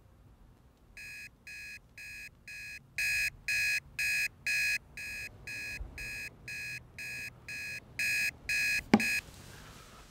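Smartphone alarm beeping, a rapid run of high electronic beeps, about two and a half a second, in louder and softer spells. Near the end a single sharp knock, after which the beeping stops.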